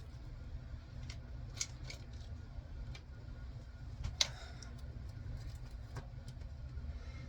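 Someone chugging Sprite from a bottle without stopping: a few faint clicks and ticks of swallowing and bottle handling, the clearest about four seconds in, over a low steady rumble.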